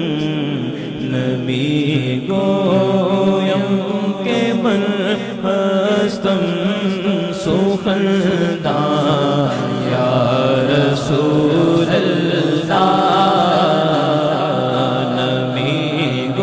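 A man's voice singing a Persian naat unaccompanied into a microphone, in long drawn-out, ornamented held notes that waver in pitch.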